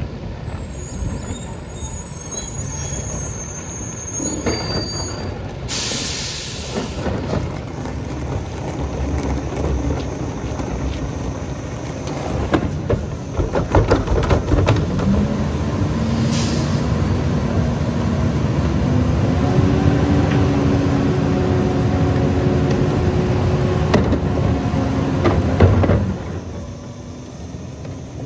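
A Western Star rear-loader garbage truck running, with its Pak Mor body's hydraulics at work. About halfway through, the engine revs up into a rising, then steady whine that holds for roughly ten seconds while the hydraulics run, then cuts off sharply. Before that come two short air-brake hisses and some knocks of carts against the hopper.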